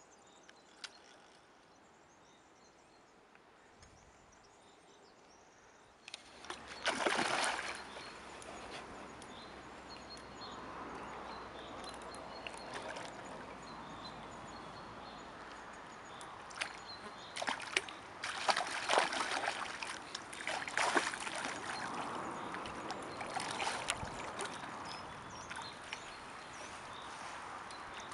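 Water sloshing and splashing, starting suddenly about six seconds in after near silence, with a loud splash soon after and more splashes later on.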